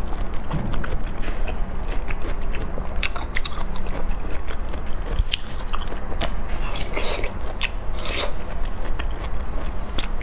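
Close-miked eating sounds: wet mouth smacks and chewing with irregular sharp clicks, over a steady low hum.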